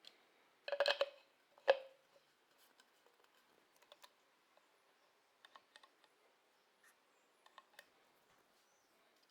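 A quick run of hard clicks and knocks about a second in, a single sharp knock just after, then faint scattered ticks: workshop equipment being handled and fitted together.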